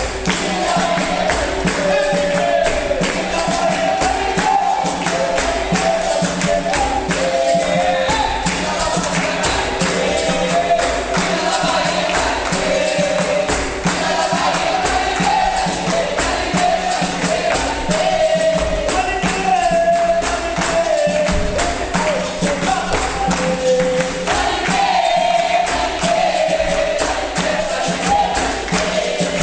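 Capoeira roda music: a group singing a chorus over the bateria's percussion, with a dense, steady beat of rapid strokes.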